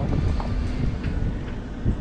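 Wind buffeting the microphone: a steady low rumble, with a soft thump just before the end.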